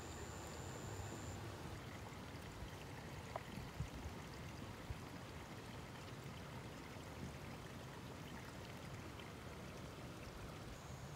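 Faint, steady rush of running stream water, with a few soft clicks about three to five seconds in.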